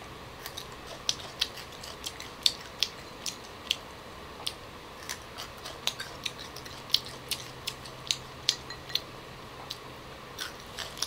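Crisp crunching and chewing of raw young green tamarind pods, a sharp crunch coming two or three times a second.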